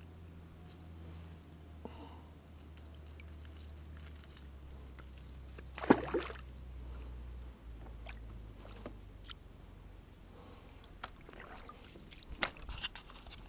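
Quiet, steady water noise around a kayak, broken about six seconds in by one sharp splash in the water right beside the hull, with scattered small knocks and clicks of fishing gear on the boat near the end.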